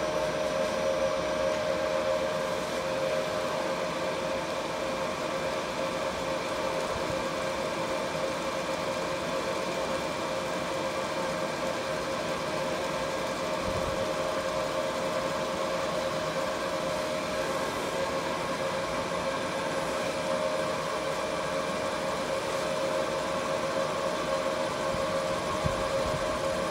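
Laser marking machine running while it marks stainless steel black: a steady hum with a constant mid-pitched tone and fainter higher tones.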